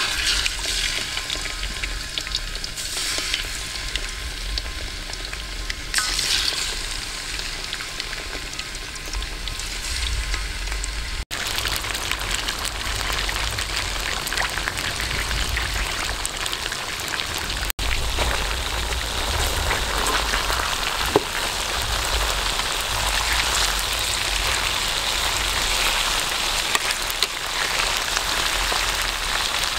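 Pieces of stingray deep-frying in a wok of hot oil: a steady sizzle and crackle of bubbling oil that grows fuller after about ten seconds, as more pieces fry.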